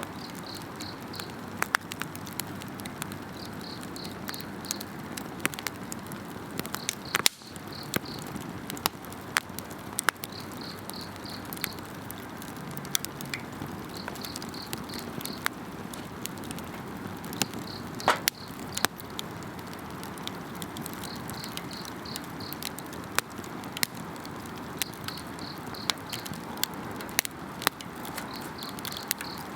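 Wood campfire crackling with frequent sharp pops over a steady hiss, while an insect calls in pulsed chirps of about a second, repeating every three to four seconds.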